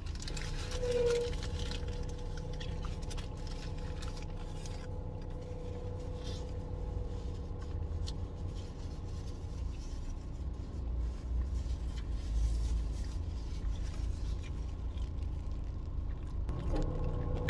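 Steady low hum inside a car, with light scraping and rustling of a paper food wrapper and small handling clicks; a brief louder sound about a second in.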